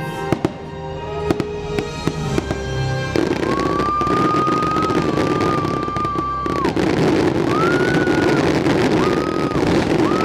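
Fireworks show finale over show music: a string of sharp firework bangs, then from about three seconds in a dense continuous crackling barrage with a high held tone over it.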